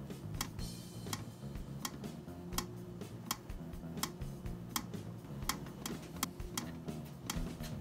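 Sharp ticking clicks at an uneven pace of about one to two a second, over soft, low sustained notes of background music.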